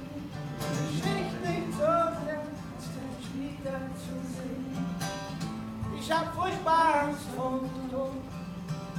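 Live acoustic guitar strumming chords, with a singing voice carrying wordless melodic lines over it twice.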